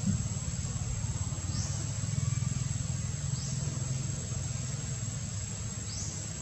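Outdoor ambience: a steady low rumble under a high, thin insect drone, with three short rising chirps spread through it.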